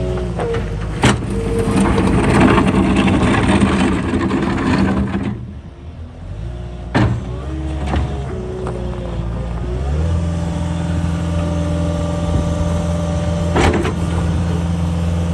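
Caterpillar 262D wheeled skid steer's diesel engine and hydraulics working under operation: revving hard, easing off briefly about five seconds in, then holding steady high revs from about ten seconds on, with a few sharp clanks.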